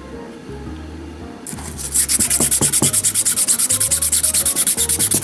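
Sandpaper rubbed by hand in quick, evenly spaced back-and-forth strokes over putty-filled seams on a 3D-printed plastic tunnel portal, starting about a second and a half in. Soft background music with low notes plays underneath.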